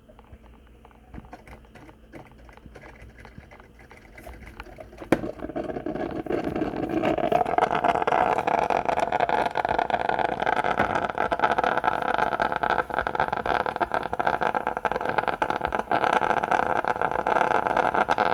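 A coffee machine's pump clicks on about five seconds in. It then runs with a steady mechanical hum that builds over a few seconds and stays loud, pushing water through the machine's freshly cleaned water tubes.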